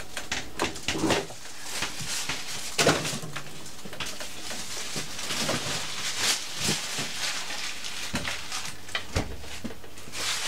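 Rustling and light knocks as a plastic bag of dough and kitchen things are handled and put into the fridge: an irregular string of short, sharp noises.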